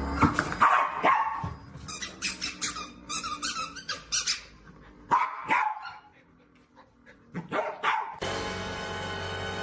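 A dog barking in short, separate barks, several times over, with a quiet pause between them. Background music comes in about eight seconds in.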